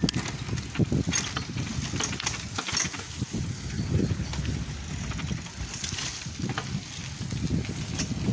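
Bicycle rattling and clicking as it rides over a rough, cracked path and across a small footbridge, with low wind rumble on the microphone.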